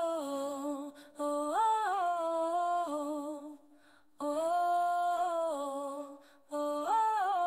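A solo voice humming a wordless melody unaccompanied, the song's intro, in four held phrases with short pauses between them and a rising turn in several. The voice is AI-generated.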